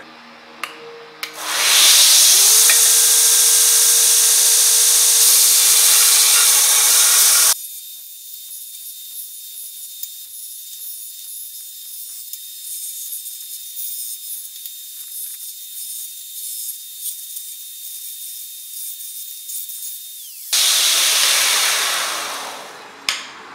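Belt grinder running: the motor spins up with a rising whine, then a metal plate is ground against the abrasive belt, throwing sparks. About seven seconds in the sound drops abruptly to a quieter, steady hiss with a thin high whine, then swells loud again near the end and fades away.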